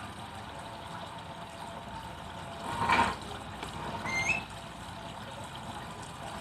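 ShopSmith bandsaw running steadily, with a brief louder surge about halfway as the blade cuts into a log section, followed by a short rising squeak.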